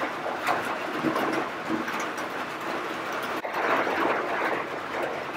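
Fabric and stiff paper backing rustling as they are handled. After a break about three and a half seconds in, a flat brush scrubs back and forth across the paper backing.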